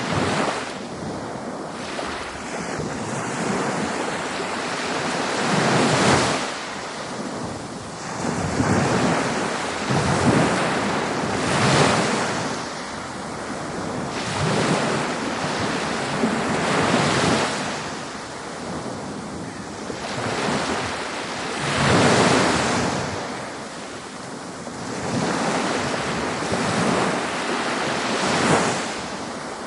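Ocean waves breaking on a beach: a continuous wash of surf that swells and ebbs, with louder breakers every few seconds.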